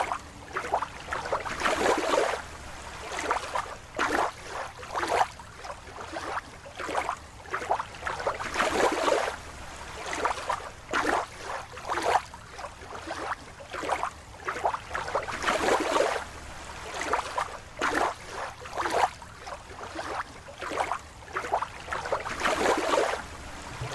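Water sloshing and splashing in irregular bursts, roughly one every second.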